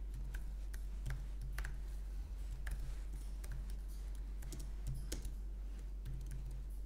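Typing on a computer keyboard: irregular, uneven key clicks as a line of code is entered, over a steady low hum.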